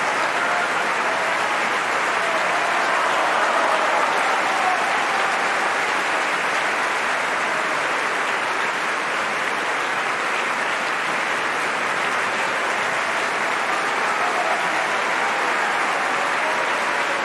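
Large opera-house audience giving a standing ovation: dense, steady applause from a packed hall.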